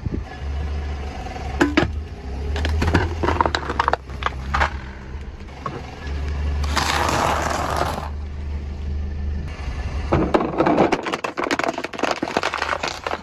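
A car tyre rolling over objects on asphalt and crushing them, with crunching and crackling as biscuits and a pretzel break up under the wheel. A dense crunch comes about seven seconds in. Near the end there is a long run of sharp cracks as a plastic toy car splits, all over a low steady rumble.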